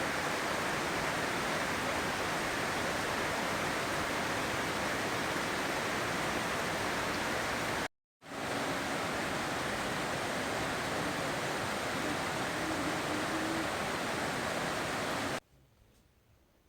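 Steady hiss of falling water. It breaks off for an instant about halfway through, then resumes, and cuts off suddenly near the end.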